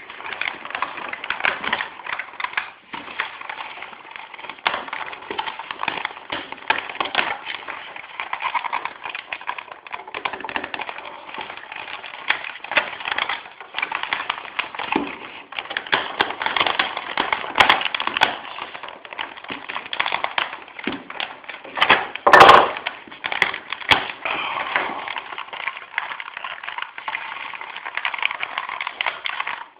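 Hands working the wire and tape of a homemade helmet phone mount: continuous crackling, clicking and rustling, with one loud crackling burst about 22 seconds in.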